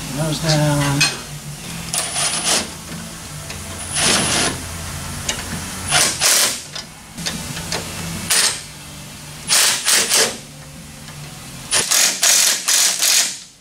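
Cordless impact wrench rattling in a series of short bursts, about seven, on the front suspension control-arm bolts, used gently so as not to break the bolts.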